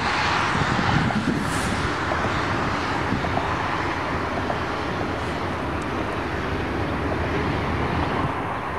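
Steady distant rumble of a CSX double-stack intermodal freight train rolling along the shoreline.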